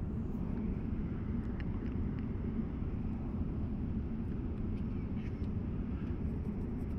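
Steady low rumble of an airliner cabin in flight, with a few faint ticks over it.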